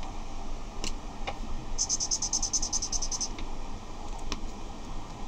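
Water-based felt-tip marker scribbled rapidly back and forth on watercolour paper: a quick run of strokes, about ten a second, lasting a second and a half. Before and after it come a few light clicks of plastic markers being handled.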